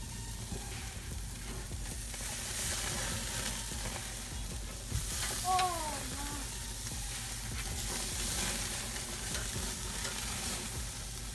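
Porterhouse steaks sizzling steadily as they sear on a grill, with a click about five seconds in followed by a short falling pitched sound.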